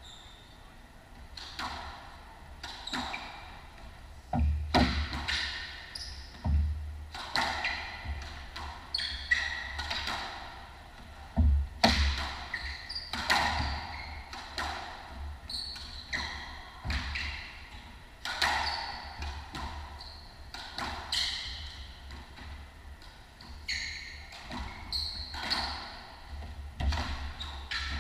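Squash rally: the ball struck by racquets and hitting the walls about once every second or so, each hit ringing briefly in the enclosed court, with shoes squeaking on the wooden floor between shots.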